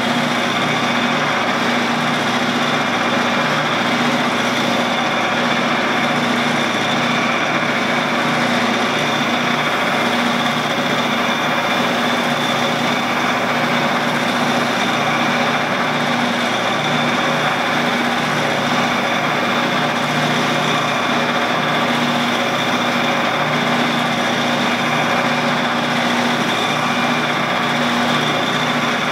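Shopsmith running steadily as a lathe, with a constant pitch, turning a stainless tube that is being polished by hand with a cloth.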